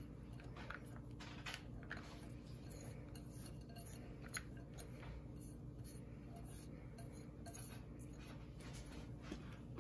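Faint scattered clicks and rustles of shredded cheese being tipped and scraped by hand from a glass bowl into a plastic mixing bowl, over a steady low hum.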